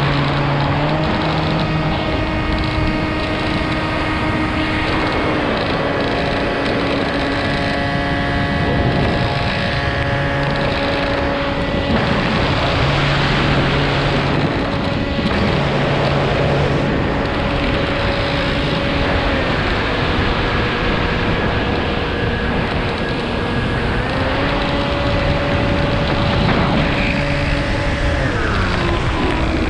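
Propeller motor of a camera-carrying RC model aircraft running in flight, with a steady drone whose pitch holds for several seconds and then slides up or down as the throttle changes, and wind rushing over the onboard microphone.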